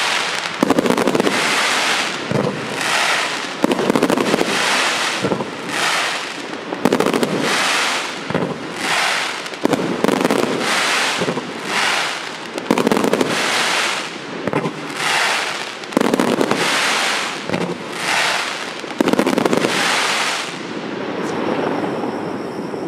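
A 140-shot, 30 mm category F4 firework cake firing. It goes off in about twenty volleys roughly a second apart, each a sharp bang trailing into a crackling hiss, and the shooting ends about 21 seconds in.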